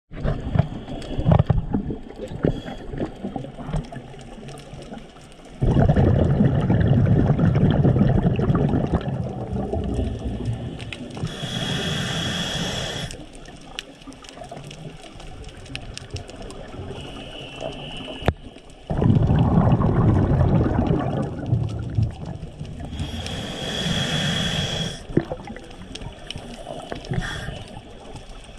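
Scuba diver breathing through a regulator underwater: twice, a long rush of exhaled bubbles is followed by a shorter hiss of inhalation. Faint scattered clicks are heard between breaths.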